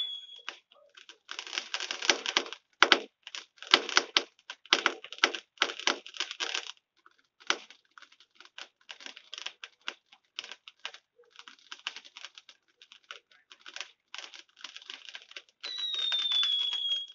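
Fireworks crackling: a dense run of rapid pops and crackles with a few sharper cracks, thinning out after the first several seconds. A high firework whistle falls slightly in pitch near the end, and the tail of another ends just after the start.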